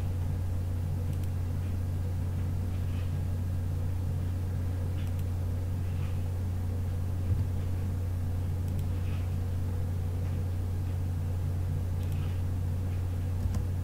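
A steady low hum, with a few faint mouse clicks about 7 seconds in and near the end.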